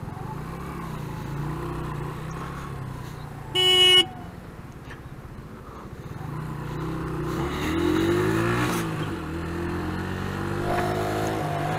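125cc motorcycle engine ticking over, with one short vehicle-horn beep about three and a half seconds in. The engine then revs up as the bike pulls away, its pitch rising and dropping at gear changes.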